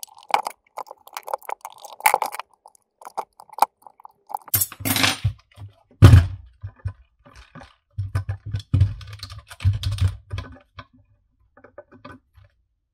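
Plastic clicks and taps of a 3Dconnexion SpaceMouse Pro being screwed back together and handled on a silicone work mat. A run of small clicks at the start is followed by a heavier thump about six seconds in, then a further series of knocks and clicks.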